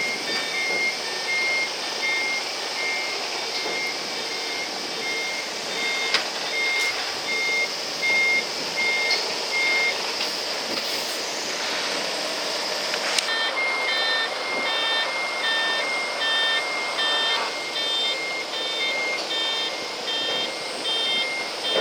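Heavy vehicle's reversing alarm beeping in an even train of short high beeps. About thirteen seconds in, a second alarm with beeps alternating between two pitches takes over.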